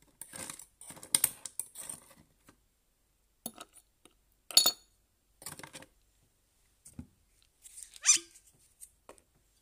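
Ice being lifted from a metal ice bucket with tongs and set into a glass tumbler: a series of short clinks and rattles of ice against metal and glass, the loudest about four and a half seconds in.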